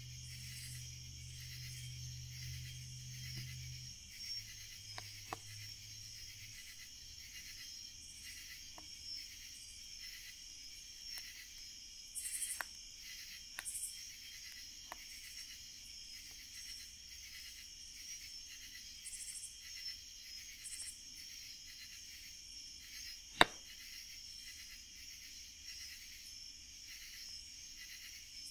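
Steady high chorus of night insects, with the wood fire crackling and giving scattered sharp pops, one much louder pop about 23 seconds in. A low hum fades out in the first few seconds.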